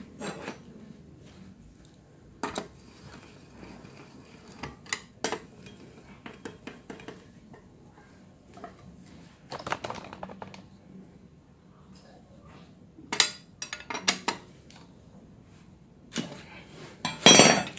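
Scattered metallic clinks and clicks of a socket wrench on the bolts of a scooter engine's cam chain tensioner as they are tightened, with a louder cluster of clicks near the end.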